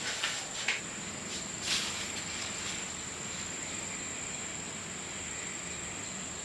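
Insects trilling steadily in one high, unbroken tone. A few soft rustles and knocks come in the first two seconds as someone moves and sits down.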